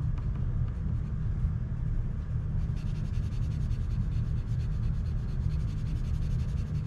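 Colored pencil scratching on paper as a wedge is shaded in. The rapid strokes become distinct about three seconds in, over a steady low rumble.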